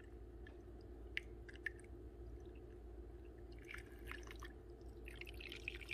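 Water poured from a plastic measuring cup into a crock pot along the side of the chicken: a faint trickle with a few small drips and splashes.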